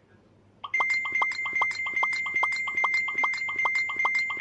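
A steady high tone with rapid, evenly spaced ticks over it, about five a second, starting under a second in.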